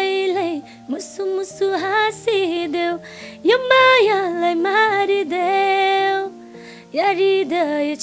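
A woman singing solo, with long held notes that waver slightly and short gliding phrases, over a faint steady instrumental backing.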